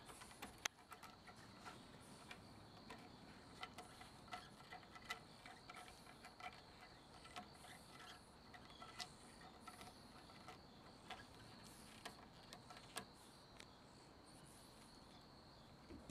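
Near silence: a faint, steady high-pitched insect trill, with scattered faint ticks and taps.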